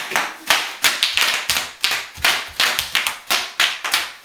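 Bubble wrap popping: a rapid, irregular run of sharp pops, about four a second.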